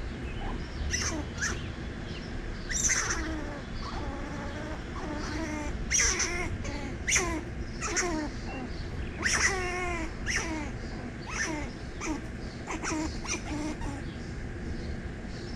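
A string of short animal calls, many of them falling in pitch, coming irregularly one after another over a steady low rumble.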